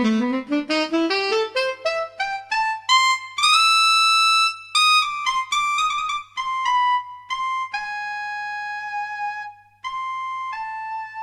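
Solo saxophone playing a quick run of short notes climbing in pitch, then a long held high note, followed by slower, longer notes stepping back down.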